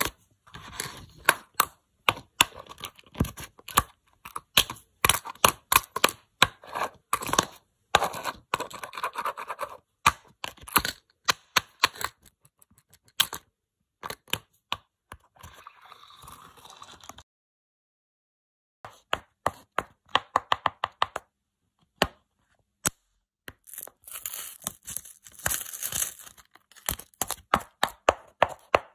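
Tiny sneakers worn on fingers tapping on a hard tabletop and crunching small candies and objects underfoot: rapid, irregular clicks and crackly crunches, broken by a short pause a little past the middle.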